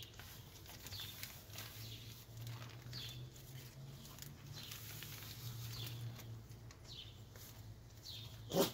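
Faint, high, short falling animal chirps, about once a second, over a steady low hum, with one short loud sound near the end.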